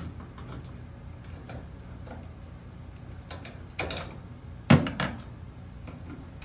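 Screwdriver working the screws on an electric dryer's power-cord terminal block: scattered small metallic clicks and scrapes, a short rattle near four seconds in and a sharper knock just after.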